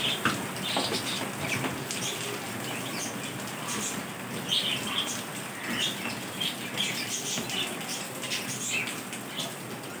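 Budgerigars chirping in short, scattered calls, with wings fluttering and light rustling.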